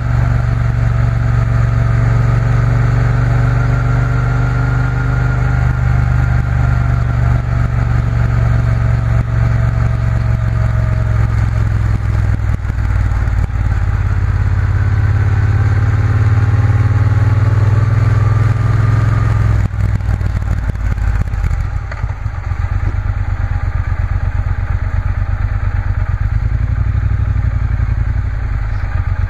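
Triumph Bonneville T120's parallel-twin engine running steadily under way, its pitch wandering gently with road speed. About twenty seconds in, the note changes and the sound briefly drops in loudness before it settles again.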